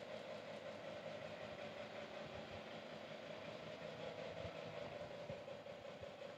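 Faint steady hum with a light hiss: background room noise.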